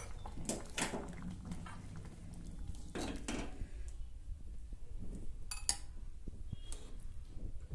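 Steel ladle clinking and scraping against a metal cooking pan and a glass bowl as soup is ladled out, a few sharp separate clinks with the loudest about two thirds of the way in.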